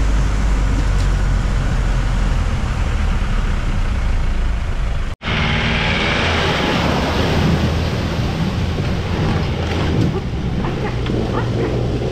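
Off-road jeep engine running steadily in low gear, heard from inside the cab. About five seconds in the sound cuts abruptly to a jeep crossing a shallow rocky stream, its engine running with water splashing at the wheels.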